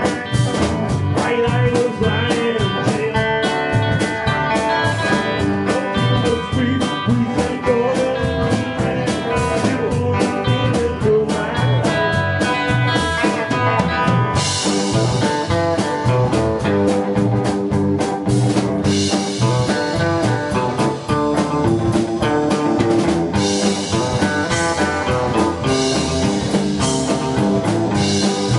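Live band of electric guitars, electric bass and drum kit playing an instrumental passage of an up-tempo country-blues tune, with a steady driving beat. The cymbals come in louder about halfway through.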